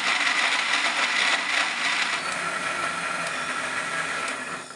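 Electric mixer grinder running steadily, its blades grinding onions, tomatoes, green chillies and coconut pieces into a wet paste; it is switched off near the end and winds down.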